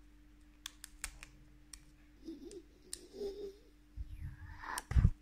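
Foil trading-card booster pack crackling in the fingers as its top is torn open: sparse sharp crackles, then a louder rustle and a thump near the end.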